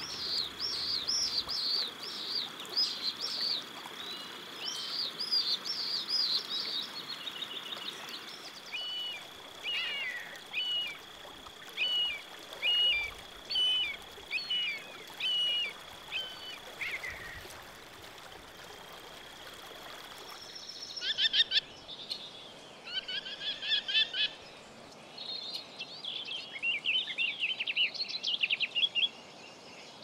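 Songbirds singing, repeating short high chirping phrases, over a faint steady hiss and a thin steady high whine. About twenty seconds in, the background changes abruptly and other birdsong takes over.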